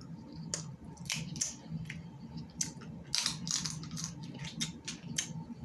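Snow crab leg shells cracking and crunching while being eaten, in a series of short, irregular cracks and clicks.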